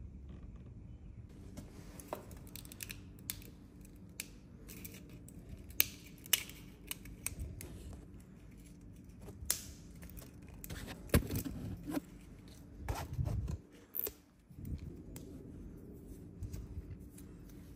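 Hard 3D-printed plastic parts being handled: irregular sharp clicks and small scrapes as the pieces are turned and fitted together in the hands, with a few dull knocks later on.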